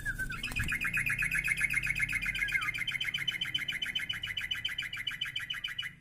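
Caged yellow-vented bulbul (trucukan) opening with a short whistled note, then singing one long, rapid trill of repeated notes at about fifteen a second: the long 'ropel' song bird keepers prize.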